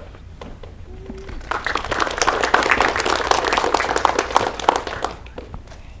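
Audience applauding, the clapping swelling about a second and a half in and dying away near the end.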